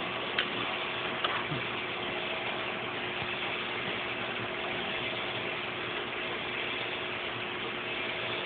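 Steady mechanical hum and hiss with faint constant tones, like a machine running continuously, with two faint clicks in the first second and a half.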